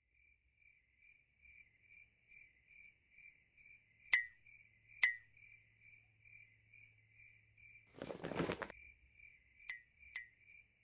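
Cricket chirping sound effect, a faint, even string of short chirps about two and a half a second, the cartoon cue for an awkward silence after an unanswered question. Two soft clicks come about four and five seconds in, and a brief rustle of a backpack being searched comes about eight seconds in.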